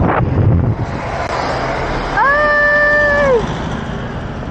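Wind rushing over an action-camera microphone on a moving road bike, easing after about a second as the bike slows. About two seconds in, one loud held tone lasting about a second, rising slightly at the start and sliding down at the end.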